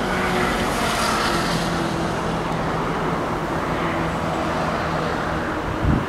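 Steady road-traffic noise with a low engine hum, with a gust of wind buffeting the microphone near the end.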